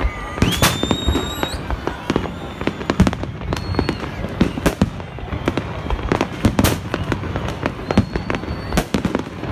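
Aerial fireworks display: shells bursting in many quick bangs and crackles. There is a rising whistle about half a second in.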